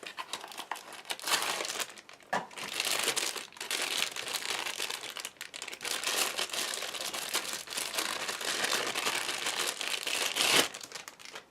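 Phone-clamp packaging crinkling and rustling as it is handled and opened by hand, with one sharper, louder crackle near the end.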